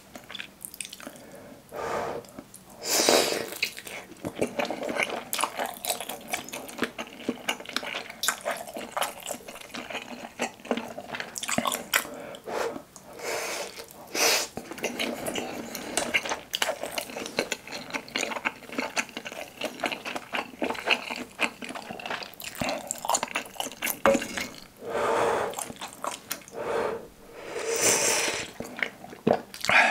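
Close-miked eating of soft Korean fish cake (eomuk): biting it off a skewer and chewing, with many wet mouth clicks and several louder slurps. Near the end, hot broth slurped from a wooden ladle.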